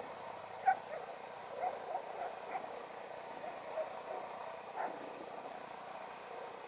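A wirehaired pointing griffon yipping in short calls, about six times, while chasing a rabbit. The loudest yip comes about a second in.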